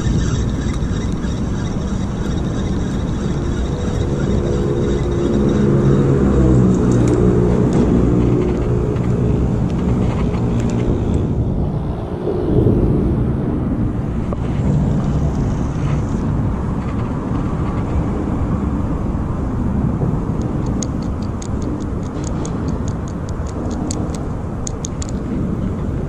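Steady engine rumble, with a pitched engine drone that swells and shifts in pitch over the middle stretch. A run of quick light ticks comes near the end.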